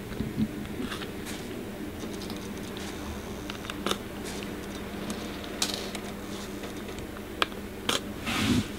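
Hands rustling and pressing curly human hair and a closure against a fabric wig cap, with a few light scattered clicks and taps and a slightly louder rustle near the end, over a steady low hum.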